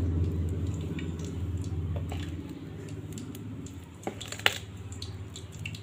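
Loose rose-cookie batter being stirred in a steel bowl: soft squishing with a few small clicks of the spoon against the bowl, the sharpest about four and a half seconds in. A low hum fades out over the first couple of seconds.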